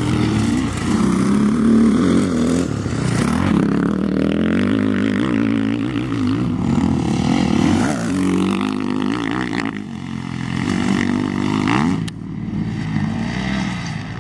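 Motocross dirt bike engines revving hard along the track, the pitch climbing and dropping again and again as the throttle is opened and shut. The sound drops suddenly about twelve seconds in, then carries on.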